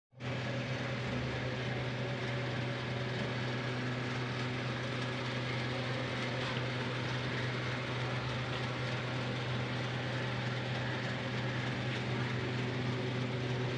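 Steady low mechanical hum, unchanging throughout, over a constant background noise.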